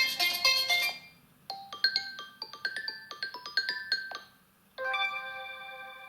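Xiaomi Redmi A5 smartphone playing its preset ringtones one after another: a busy tune cuts off about a second in, then a quick run of short pitched notes, a brief pause, and a held chime near the end.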